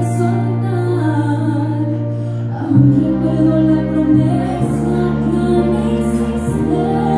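Music: a slow song with a singing voice over sustained chords that change about every two seconds.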